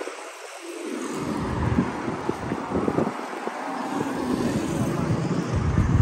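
Street traffic going by, with wind gusting on the microphone in irregular low rumbles.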